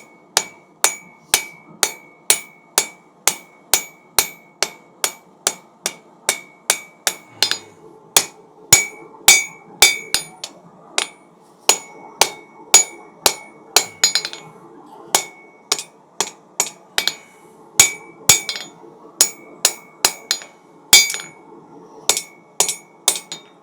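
1,000 gram hand hammer striking hot steel on an anvil, about two blows a second, each with a bright ring, while a knife point is forged by corner packing. A faint steady hum runs underneath.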